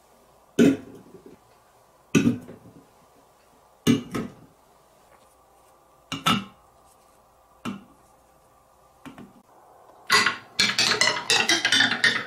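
Single wooden clacks and knocks, a second or two apart, as wooden blocks and drink cans are handled and set down on a table. About ten seconds in, a quick clattering run of clicks begins as marbles tumble down the wooden leaves of a rainbow tree marble run.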